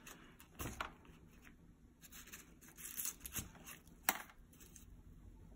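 A stick pushing dried herbs and paper down inside a glass jar: faint scattered rustles, scrapes and clicks against the glass, with a sharper click about four seconds in.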